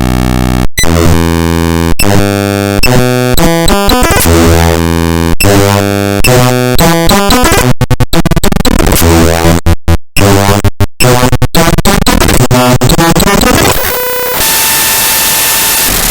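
Harsh, loud digital noise from the binary data of the Windows explorer.exe program file played back as raw audio. Buzzing tones jump to new patterns every fraction of a second, cutting out briefly several times between eight and eleven seconds in. About fourteen seconds in it turns to an even hiss with a few steady tones.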